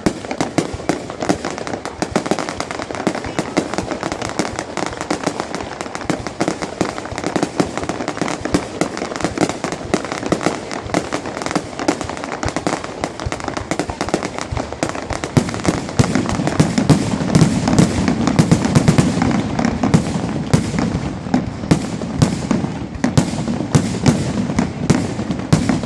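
Fireworks bursting without pause: a dense crackle of many overlapping sharp pops and bangs, growing heavier with deeper booms from about two-thirds of the way in.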